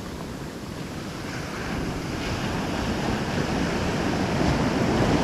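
Surf washing up the beach, a sheet of foaming swash that grows steadily louder as the wave runs in.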